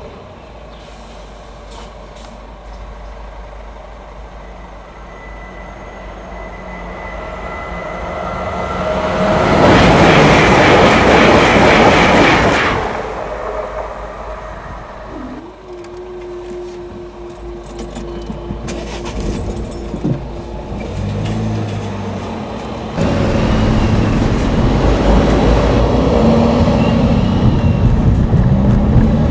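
Heard from inside a car waiting at a level crossing: a train passes in a loud rush of noise that swells and peaks about ten seconds in and lasts about three seconds. In the second half the car's engine pulls away, its note rising in steps through the gears, and the car drives on.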